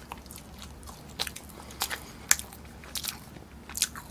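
Close-miked chewing and mouth smacks from people eating burgers: a loose series of short, sharp wet clicks, about two a second.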